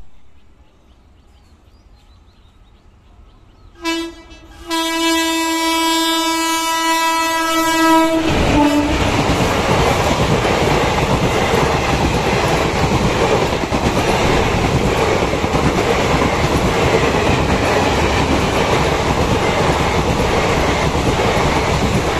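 An Indian Railways passenger train sounds its horn, a short blip and then one long steady blast of about three seconds. The train then passes close by: a loud, continuous rumble and clatter of coach wheels on the rails.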